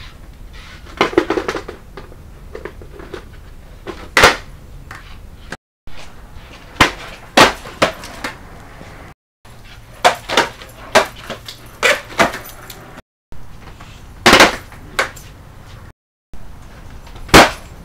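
Skateboard clacking and slapping on a concrete floor during freestyle tricks: a series of sharp smacks as the deck and wheels come down on the floor, with lighter clicks between them. The run is cut off abruptly several times between takes.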